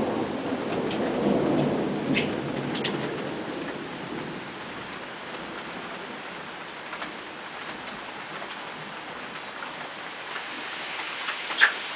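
Steady rain falling, with a low roll of thunder that swells and fades away over the first four seconds. A few sharp drip-like taps come through, the loudest shortly before the end.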